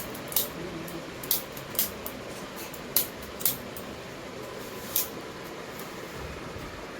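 A series of sharp, short, high-pitched clicks or snips, about seven of them at irregular spacing, over a steady low hiss.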